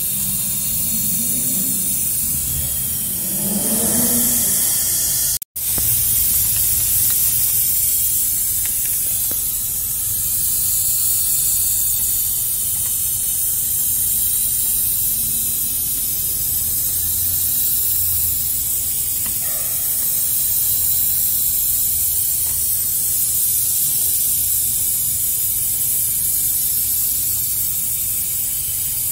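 Steady hiss of compressed air flowing through an air chuck into a truck's rear dual tyre as it is inflated. The sound drops out for a moment about five seconds in.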